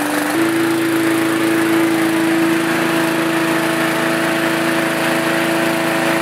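Briggs & Stratton 3.5 hp single-cylinder four-stroke push-mower engine running steadily at speed. A small step up in pitch comes slightly less than half a second in. It runs smoothly after a new carburetor diaphragm, a sign that the repair has cured the no-start fault.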